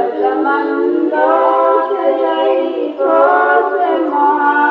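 Unaccompanied voice singing a naat, an Islamic devotional song, in long held notes that bend and glide between pitches, with a brief break about three seconds in.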